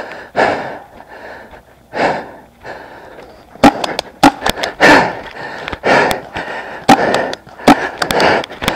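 Heavy, rapid breathing close to the microphone, with several sharp loud pops from about three and a half seconds in.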